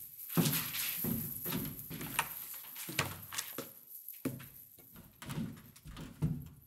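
Irregular knocks, thuds and rustling of someone moving about and handling objects on a table, as in rummaging.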